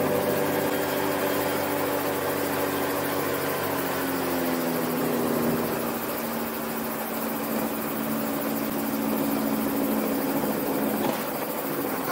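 Kallithea gyroplane's engine and propeller running near idle during the landing rollout, heard from inside the cockpit. It is a steady drone whose pitch drops slightly about four to five seconds in and then holds.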